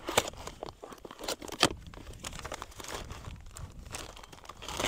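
Paper and plastic packaging crinkling and tearing as a kit is unwrapped by hand, with two sharper crackles, one just after the start and one about a second and a half in.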